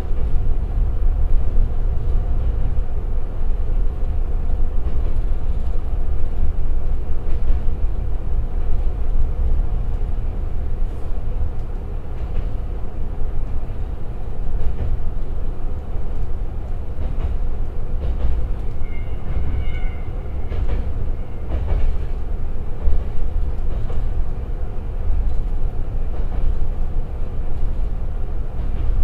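Interior running sound of the Tsugaru 21 diesel railcar: its Niigata Tekko DMF13HZ diesel engine running steadily in torque-converter drive under a deep steady rumble of wheels on rail at about 35 km/h, with occasional clicks from rail joints. About two-thirds through a brief high squeal sounds.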